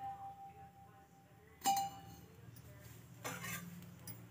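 Metal spoon clinking against a steel bowl while oil is spooned onto a paratha on the tawa: one sharp clink about two seconds in that rings briefly, then a softer knock near the end.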